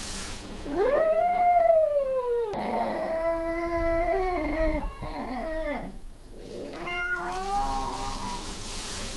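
Cat caterwauling, the mating call of a cat in heat: three drawn-out wails. The first rises and then falls, the second wavers, and a shorter third comes near the end, with a steady hiss beneath.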